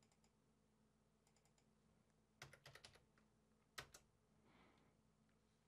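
Faint keystrokes on a computer keyboard: a quick run of about five taps a little over two seconds in, then a single tap about a second later, typing a new dimension value.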